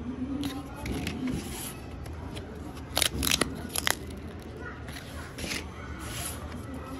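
Paper pull-tab lottery tickets being handled and their perforated tabs ripped open, with a few short, sharp tearing rips about three seconds in and another near four seconds.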